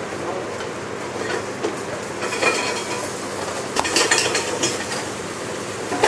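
Gnocchi and shiitake mushrooms frying in a pan over a gas flame, with clatters of the pan and metal utensils about halfway through and again a little later, over a steady background hum.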